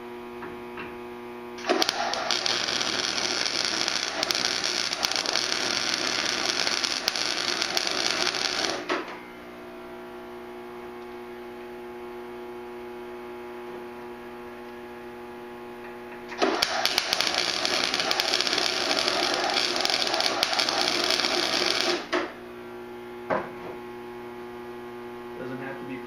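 A handheld power tool runs in two bursts, the first about seven seconds long and the second about five and a half, over a steady electrical hum.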